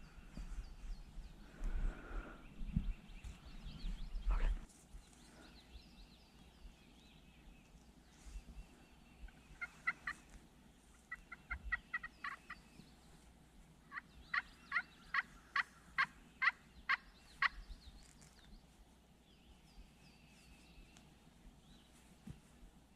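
Wild turkey calling: three series of short, evenly spaced notes, a brief run about ten seconds in, a quicker run a second later, and a longer, louder run of about eight notes near the middle. Before these, for the first few seconds, low rustling noise.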